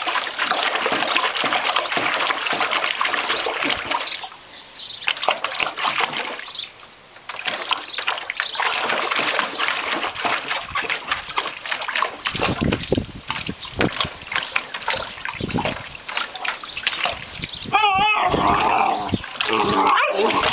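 A puppy pawing and digging at the water in a plastic tub, with repeated splashing and sloshing that breaks off briefly twice. A short wavering high-pitched squeal comes near the end.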